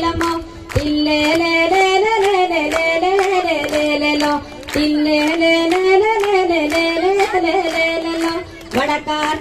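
A woman singing a folk song solo without instruments, amplified through a microphone, in long phrases with short breaths between them. The audience claps along to a steady beat.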